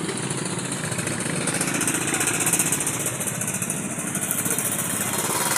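Small motorcycle engine running close by, with a fast, even firing rhythm, over busy street noise.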